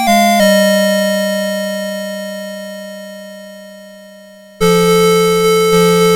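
Electronic alarm melody from a Citizen Melody Box 30 series alarm clock: one tune ends on a long held note that fades away over about four seconds, then the next tune starts suddenly about four and a half seconds in.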